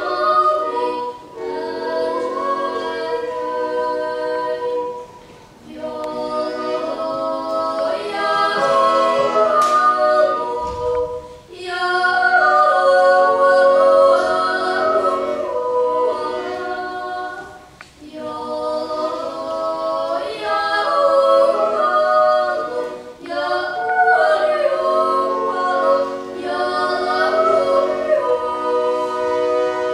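A small group of voices singing a Swiss yodel a cappella: upper voices move over held chords, in long phrases with short breaks between them.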